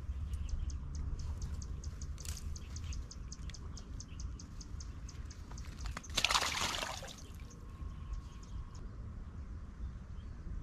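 Water splashing as a hooked tilapia is drawn in on a hand-pole line, with one loud splash about six seconds in as the fish is taken from the water. Before it comes a fast run of light ticks, about five a second, over a low steady rumble.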